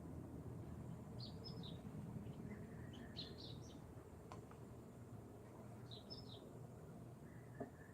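A small bird chirping in three short bursts of quick high notes, over a faint steady background hum.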